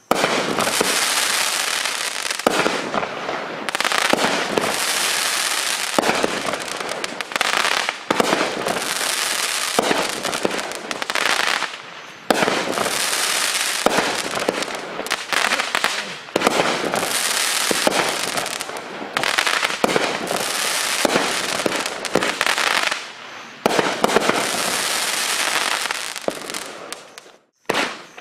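Consumer fireworks from an assortment case going off: dense crackling and sharp pops in surges every second or two with brief dips between, dying away near the end.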